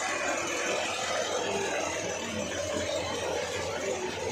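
Steady, even vehicle engine noise.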